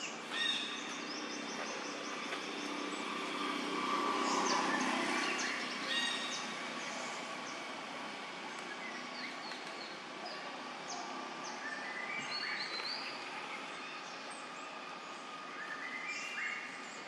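Outdoor ambience with birds chirping: many short, rising chirps scattered through, over a steady background hiss. A broader low swell of noise rises and fades about four to five seconds in.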